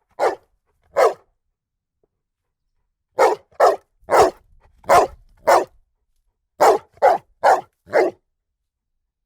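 Dog barking in short, separate barks: two about a second apart, then after a pause a run of five, then a run of four.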